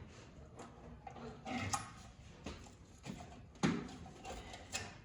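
Scattered light knocks, clicks and rustling as the heater fan housing and its wires are worked into place, the loudest knock about three and a half seconds in.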